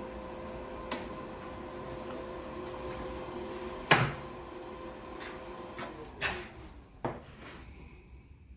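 A welder's cooling fan hums steadily, then winds down with a falling pitch about six seconds in as the machine is switched off. Sharp metal clicks and knocks come with it, the loudest about four seconds in.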